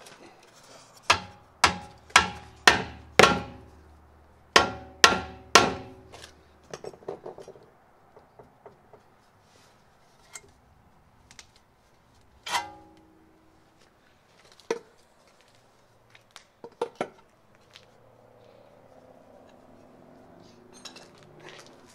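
Hammer blows ringing on the steel front suspension of a Mercedes W201 while the lower control arm is knocked loose: a run of five quick strikes, a pause, three more, then a few single knocks and clanks further apart.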